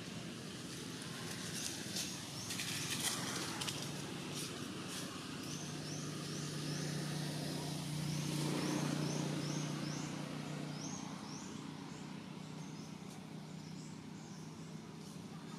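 Outdoor forest ambience: a high, short chirping call repeats in quick runs, and a low steady drone swells up in the middle and fades away again, with a few light clicks early on.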